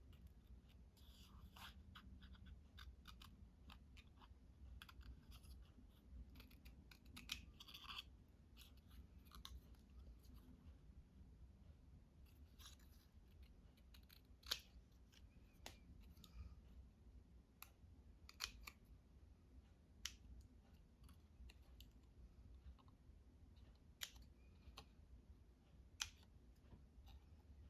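Scissors cutting paper, faint: scattered snips and small clicks at an irregular pace, with a few sharper clicks spread through, over a low steady hum.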